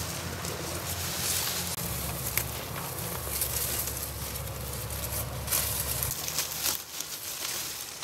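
Rustling and crackling of dry straw mulch and leafy vines as jicama roots are pulled out of the soil by hand, over a steady low hum that cuts off about six seconds in.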